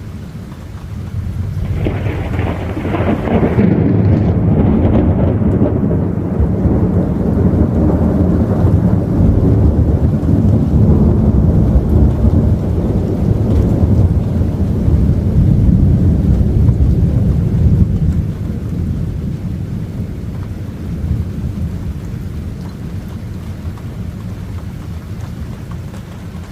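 Thunder: a sharp crack about a second and a half in, then a long low rumble rolling on for some fifteen seconds before slowly dying away.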